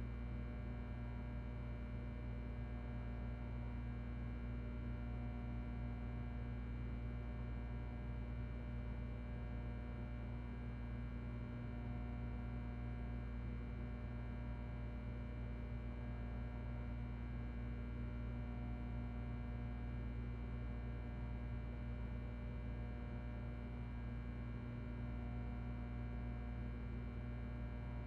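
Ventilation system running with a steady, even hum: a low drone and a stack of fainter steady tones above it, unchanging throughout.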